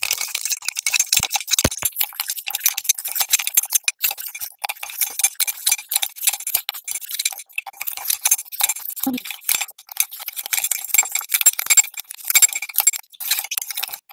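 Metal spoon beating instant coffee, sugar and a few drops of water in a ceramic mug, whipping it into a thick paste: rapid, continuous scraping and clinking of the spoon against the inside of the mug.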